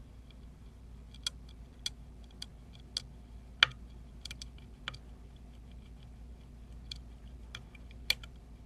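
Lock pick and tension wrench working the pins of an Emhart lock cylinder: irregular small sharp clicks and ticks, with a louder click about three and a half seconds in and another near the end.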